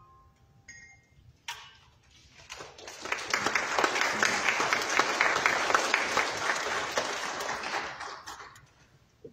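Audience applauding, starting about two and a half seconds in, building quickly to a steady clatter of many hands and fading out near the end.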